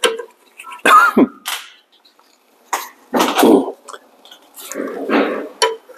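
A man coughing three times, about two seconds apart.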